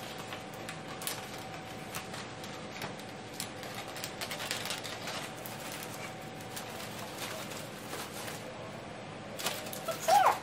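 Gold foil number balloons crinkling and rustling as string is threaded through them by hand, a run of small irregular clicks and crackles. Near the end a brief pitched sound that bends up and down stands out as the loudest thing.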